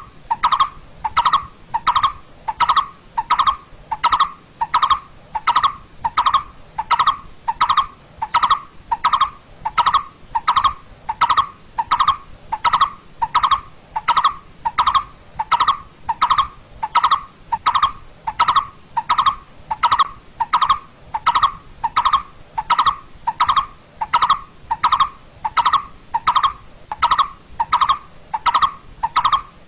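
Coppersmith barbet calling: a steady, even run of short, identical notes, about one and a half a second.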